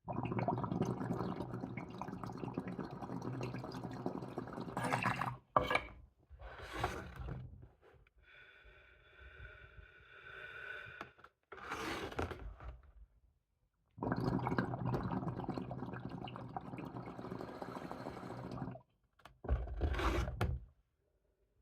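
Water bubbling in a vaporizer's water pipe during two long draws of about five seconds each. Short breathy bursts come between the draws and near the end, exhales or coughs from a harsh hit.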